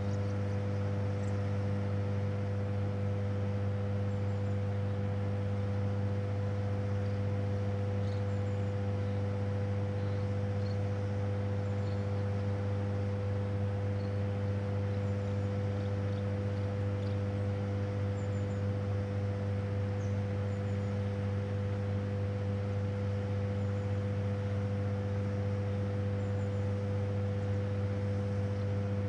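Steady low hum of a hydroelectric power station's machinery, an unchanging drone of several steady tones. Faint high chirps come now and then over it.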